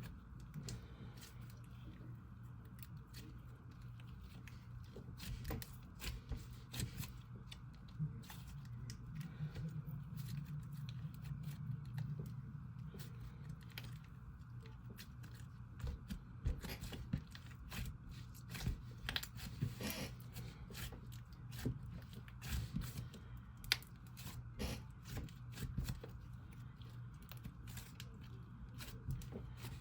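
Hands squishing and stretching a soft slime with clay pieces and sprinkles mixed in, making a steady run of small sticky clicks and crackles.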